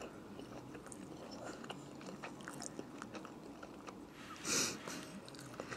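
Close-miked mouth sounds of chewing a bite of waffle: faint small clicks and smacks, with one louder short rush of noise about four and a half seconds in.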